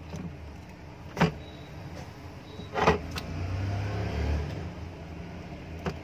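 Clicks and knocks from a mixer grinder motor and its wiring being handled on a workbench, with four sharp ones, over a steady low hum. The carbon-brush leads are being worked loose to reverse the motor's rotation.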